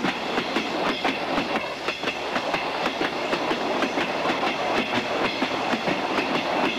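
Passenger train running along the track, heard from inside the carriage: a steady rumble with frequent short clicks of the wheels over the rail joints.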